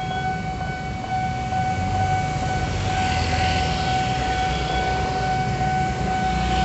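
Railroad level-crossing warning alarm sounding as a steady, unbroken electronic tone while the barriers are down, over the low rumble of motorcycles and a car crossing the tracks.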